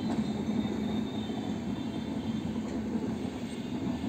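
Indian Railways LHB passenger coaches rolling past at speed: a steady rumble of steel wheels on the rails, with the train's last coach going by near the end.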